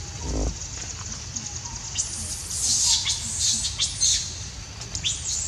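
Young macaques squealing and squeaking in rough play, a run of short, high-pitched cries with quick falling sweeps, loudest from about two seconds in.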